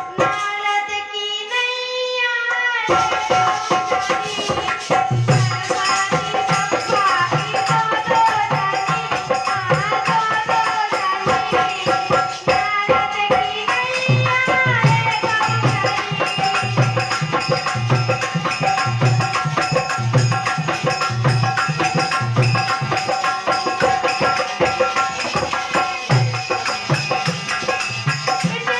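A young girl singing a song, her voice alone for about the first three seconds, then joined by a percussion accompaniment keeping a steady beat.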